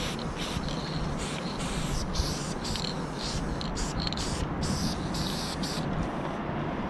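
Aerosol spray-paint can hissing in short repeated bursts as lines are sprayed onto the truck's painted metal side, the bursts stopping near the end. A steady low rumble runs underneath.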